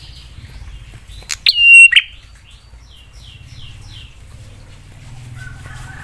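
Prinia (prenjak) calling: a loud, sharp call about a second and a half in, followed at once by a quick run of about five buzzy notes. A faint thin whistle comes near the end.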